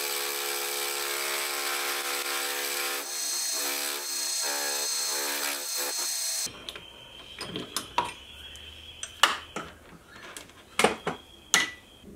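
Milling machine end mill cutting flats into a small round insert, a steady pitched drone that stops abruptly about six and a half seconds in. Then several sharp metal clicks and taps as the part is handled.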